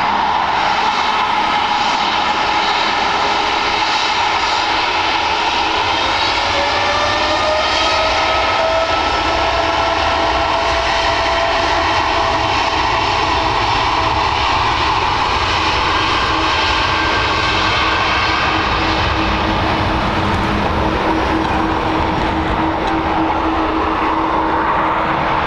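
Boeing 787-8 Dreamliner's jet engines whining steadily as the airliner taxis onto the runway, with an engine tone that rises in pitch for a few seconds about a quarter of the way in.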